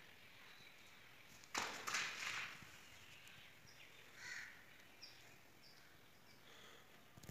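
Quiet background with one brief, noisy burst about a second and a half in, followed by a few short, faint, high bird chirps.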